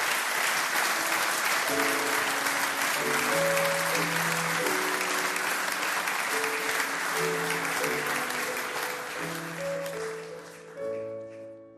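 An audience applauding, with music fading in under it about two seconds in. The applause dies away near the end, leaving the music.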